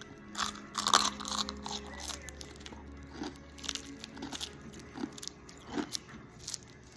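Crisp food being bitten and chewed: an irregular string of sharp crunches, loudest about a second in.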